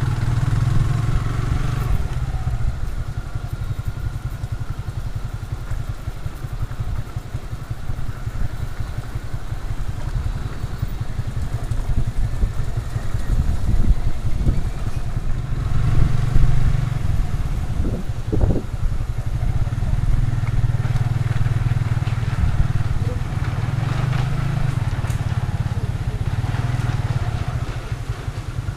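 Motorcycle engine running while riding, under a heavy low rumble of wind on the microphone, with a couple of short rises in engine pitch around the middle.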